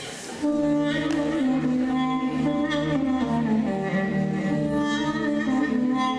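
Bowed string instruments start playing about half a second in: slow, held notes with vibrato, the opening of a song.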